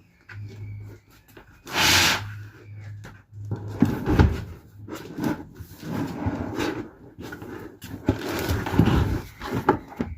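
A large roll of stiff, hard-wearing lino being unrolled and shifted across a van floor: a loud rushing swish about two seconds in, then irregular scraping, rustling and dull thumps as the sheet is dragged and flopped flat.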